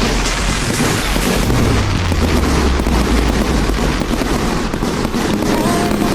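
Multi-shot fireworks cake firing in a rapid, continuous barrage: dense overlapping booms and crackling pops with no break. Near the end a tune of music comes in over the barrage.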